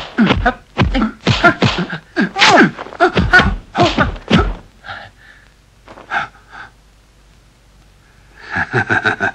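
Kung fu fight sound effects: a quick run of sharp punch and slap impacts mixed with short shouts and grunts from the fighters, about a dozen hits in four and a half seconds. Then a quieter stretch with a few faint hits, and a man's voice starts near the end.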